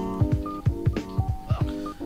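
Hip hop backing music: keyboard chords over a steady drum beat, with no vocals.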